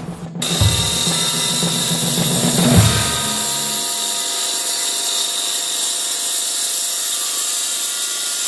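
Ryobi RYi2200 gas inverter generator running steadily, a constant mechanical drone with a high whine. Background music with drum beats plays under it for the first few seconds, then fades out.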